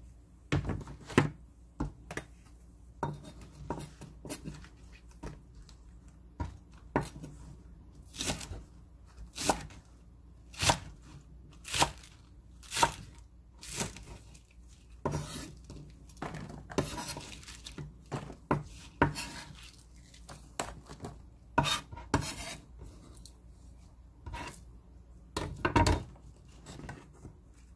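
Kitchen knife cutting scallions on a wooden cutting board: sharp knocks of the blade striking the board, scattered at first and then about one a second through the middle.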